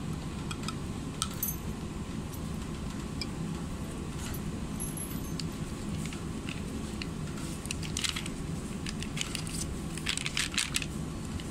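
Plastic Quanti-Tray being handled and pulled open, giving scattered small clicks and crinkles that cluster about eight to eleven seconds in, over a steady low hum.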